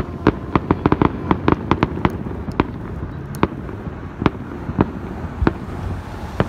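Aerial fireworks shells bursting: a quick run of sharp bangs and pops over the first two seconds, then single bangs every half second to a second.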